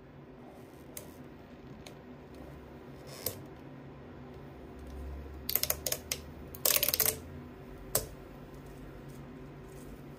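3D-printed plastic chain links clicking and rattling against each other and the print bed as they are peeled up and flexed by hand: a few scattered clicks, a quick run of clicks about five and a half seconds in, a louder rattle around seven seconds and one sharp click near eight seconds.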